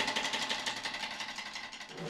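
Several snare drums playing fast rolls together, getting steadily quieter.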